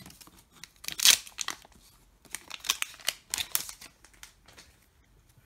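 Wrapper of a Fleer Ultra 2014-15 hockey card pack being torn open and crinkled: a run of sharp rips and crackles, the loudest about a second in, thinning out after about four seconds.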